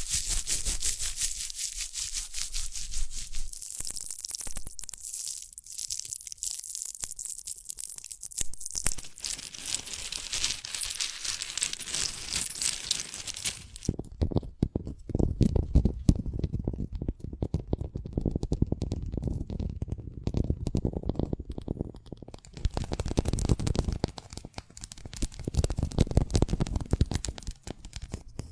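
A large pod being opened and handled up close: dense fine crackling for about the first half, then a lower, rougher rubbing and tearing.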